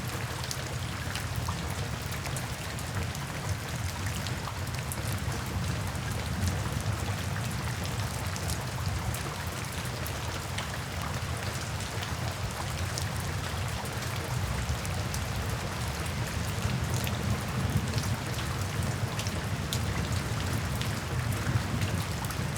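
Steady rain falling on and against a window, with many small drops ticking on the glass over a constant low rumble of rainfall.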